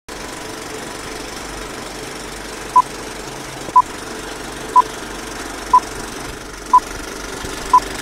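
Old-time film-leader countdown effect: a film projector's steady running clatter, with a short high beep once a second from about three seconds in, six beeps in all, louder than the clatter.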